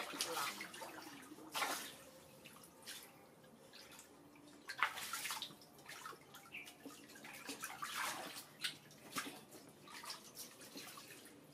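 Water splashing and sloshing in an inflatable paddling pool as a young monkey swims and paddles through it, in irregular splashes with drips between them.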